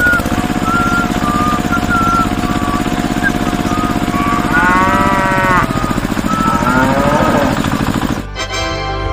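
Small electric motor of a toy concrete mixer running steadily as its drum turns the cement slurry, then cutting off about eight seconds in.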